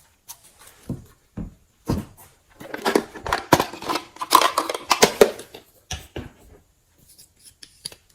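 Slime being squeezed and poked, giving sharp wet pops and crackles. A dense run of crackling sits in the middle, with single pops before and after.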